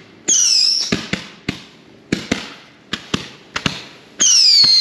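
Whistling firework rockets launching: two loud whistles that fall in pitch, one just after the start and one near the end. A string of sharp pops and cracks runs between them.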